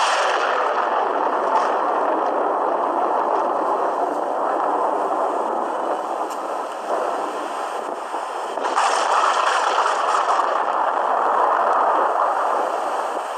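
Thunder rumbling and rolling on after a close crack. A second loud peal breaks about nine seconds in, rumbles for a few seconds and eases off near the end. It is picked up by a phone microphone, so there is no deep bass.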